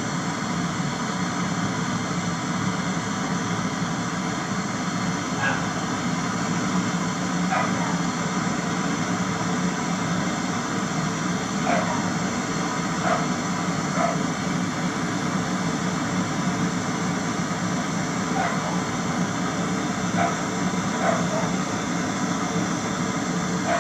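A steady machine hum and hiss, with a dog barking faintly about eight times.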